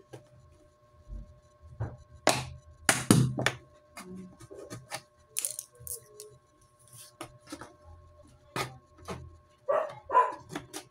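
Empty plastic bottle handled and turned in the hands: a scattering of crackles and knocks, the loudest about two to three seconds in.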